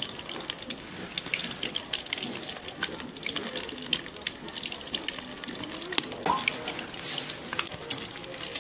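Batter-coated egg pakoras deep-frying in hot oil in a steel wok, a steady crackling sizzle, with a sharper click about six seconds in as the slotted spoon works them.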